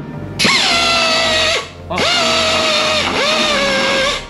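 A power tool run twice, about a second and then about two seconds, its whine dropping in pitch as it bites into the work and then holding steady: grinding away thick body filler on a tailgate.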